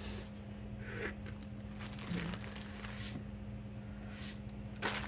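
Plastic packaging crinkling and items shuffled about on a desk, in scattered short rustles with a sharper clack near the end.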